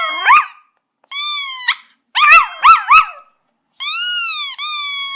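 A rubber squeaky toy giving long squeals, twice, and between them a chihuahua howling along in short, quickly rising and falling yips.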